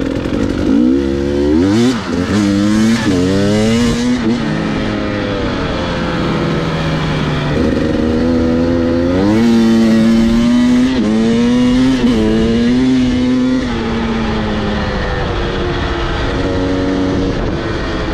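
Two-stroke enduro dirt bike engine being ridden and accelerating through the gears. Its pitch climbs in several quick sweeps in the first few seconds, then mostly holds steady, rising again about nine and twelve seconds in.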